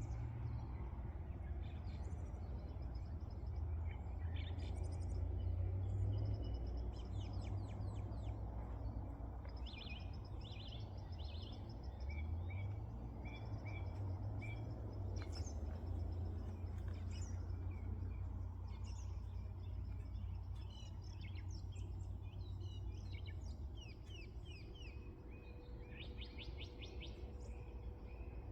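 Many small birds chirping and trilling over one another, with a steady low rumble underneath.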